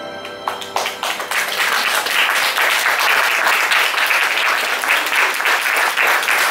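The last held chord of the song's backing music fades out, and audience applause starts about half a second in, quickly swelling into steady clapping.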